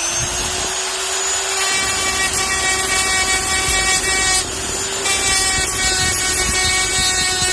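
A small high-speed electric tool motor spins up with a quick rising whine, then runs at a steady pitch, growing louder and rougher about two seconds in.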